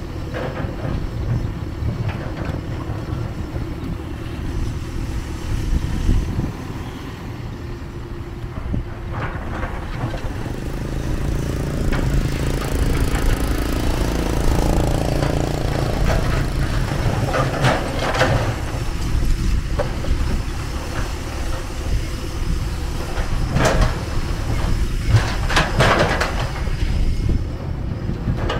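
Kobelco SK250 long-reach excavator's diesel engine running steadily with a low rumble while it digs. A small motorbike engine swells up and fades as it passes about halfway through, and several sharp knocks come in the second half.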